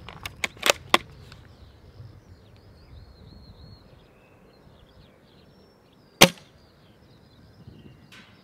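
Spring-powered Novritsch SSG96 airsoft sniper rifle firing a single shot, one sharp crack about six seconds in. A few quick clicks come near the start.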